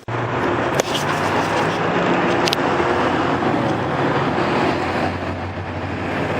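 Motor vehicle running: a steady low engine hum with road noise, with a couple of short clicks about one and two and a half seconds in.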